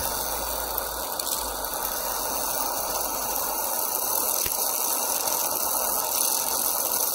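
Homemade argon ion drive running steadily: a high-voltage electric arc spinning between two concentric copper tubes under radial neodymium magnets, fed by microwave-oven transformers through a DC rectifier. The noise is even throughout, with a low hum that drops away about halfway through.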